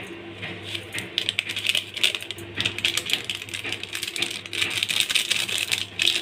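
A foil seasoning sachet crinkling and crackling in rapid, irregular clicks as it is shaken and squeezed to empty its spice powder onto noodles in a steel bowl.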